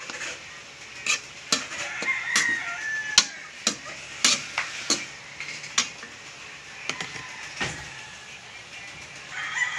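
A metal ladle stirring snails in their shells in a wok, with sharp irregular clacks of metal and shell against the pan about once a second over a light sizzle as the liquid cooks down. Chickens call faintly in the background.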